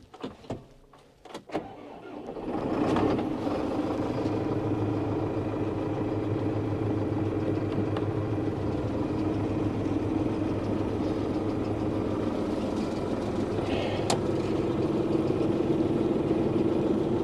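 A few clicks and knocks, then about two seconds in a tractor's diesel engine starts and settles into a steady run.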